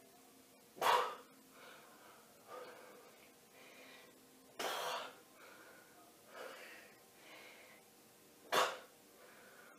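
A man breathing hard with exertion during decline push-ups: three loud, sharp exhales about four seconds apart, with softer breaths between.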